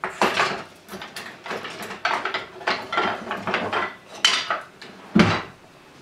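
Kitchen cookware and utensils clattering: a quick run of clinks and knocks, with one heavier thud about five seconds in.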